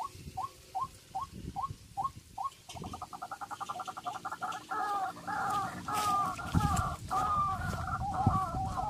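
Bird calls: a run of short rising notes a little under half a second apart, breaking into a fast stutter about three seconds in, then a warbling call on two pitches. A couple of low thuds sound under the calling near the end.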